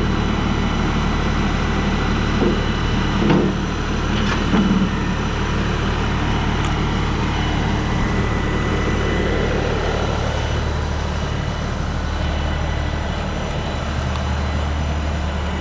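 42 hp LS compact tractor's diesel engine running steadily, with a couple of short knocks about three and four seconds in.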